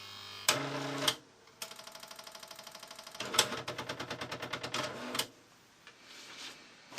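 Olivetti ET Personal 510 electronic typewriter running its power-on start-up cycle. A short motor buzz comes first, then the print mechanism moves with a rapid, even run of ticks, followed by a rougher, uneven ticking that stops about five seconds in.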